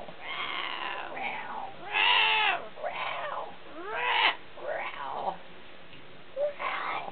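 Kitten meowing repeatedly: about six separate meows that rise and fall in pitch, each under a second long.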